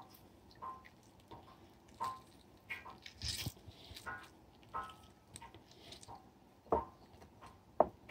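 Lemon halves squeezed by hand over a glass bowl: soft, intermittent squishing of the fruit and juice dripping, with a couple of sharper taps near the end.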